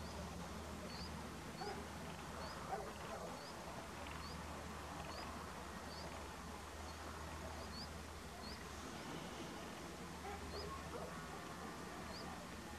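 A bird calling with a short, high chirp repeated at a steady pace of about two a second, faint, over a low steady hum.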